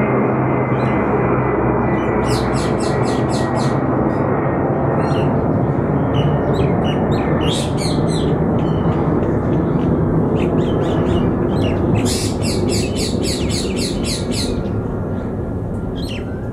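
Deep, steady drone of a formation of four-engine military transports passing overhead, C-130 Hercules turboprops and an Ilyushin Il-76-type jet tanker, fading over the last few seconds. Over it, a bird chirps in quick trains of high notes three times, the longest near the end.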